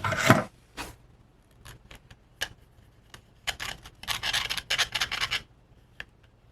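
Gritty scraping and rubbing of casting sand as freshly poured zinc castings are worked out of a sand mold, with a loud scrape right at the start, scattered clicks, and a longer run of scratching from about three and a half seconds in.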